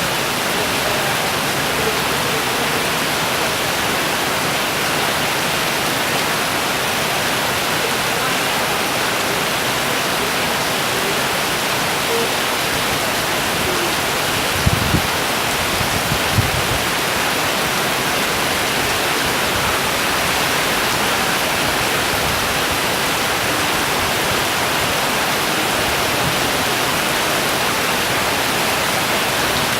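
Heavy rain pouring down in a steady, dense hiss, with two brief low thumps about halfway through.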